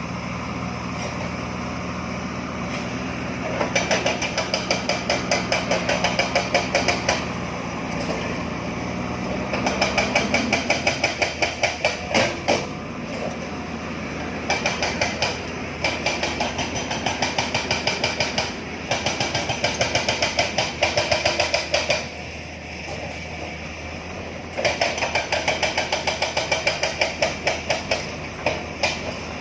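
Backhoe loader's diesel engine running steadily, then rapid, even hammer blows, about four a second, in runs of several seconds with short pauses between them: a hydraulic breaker pounding rock.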